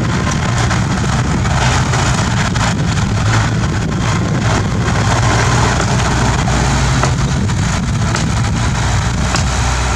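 Bulldozer's diesel engine running steadily, with a few faint knocks over it.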